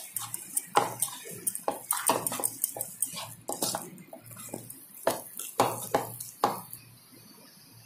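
A metal spoon stirring and scraping a thick, pasty stuffing mixture in a bowl, with irregular clicks and knocks of the spoon against the bowl. The clicks thin out and die away near the end as the mixing stops.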